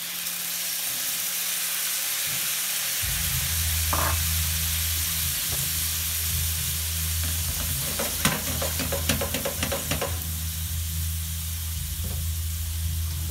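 Water in a hot stainless-steel pan of frying meat patties, hissing and sizzling as it boils off into steam, with a run of crackling pops about eight to ten seconds in. A low steady hum comes in about three seconds in.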